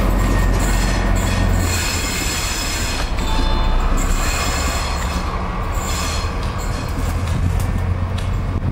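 Train moving slowly over the tracks, steel wheels squealing against the rails in high ringing tones that come and go over a steady low rumble.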